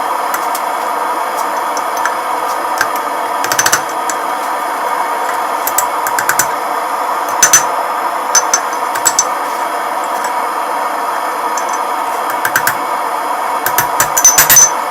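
Scattered metal-on-metal taps with a high ring, some in short clusters and a quick run near the end, typical of hammer or tong work on steel at the anvil. Under them runs a steady roar, typical of a forge or its blower.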